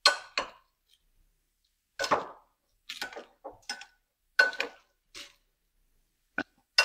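Metal kitchen tongs clinking and scraping against a glass mixing bowl while tossing Brussels sprouts in sauce: a string of short, irregular clinks with a slight glassy ring, several close together in the middle.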